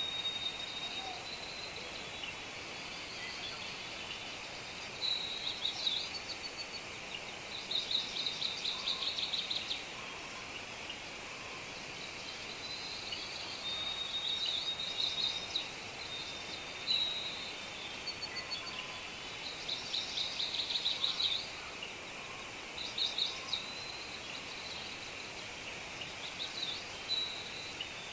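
Small songbirds singing: high, rapid trilled phrases about a second long, repeating every few seconds over a steady background hiss.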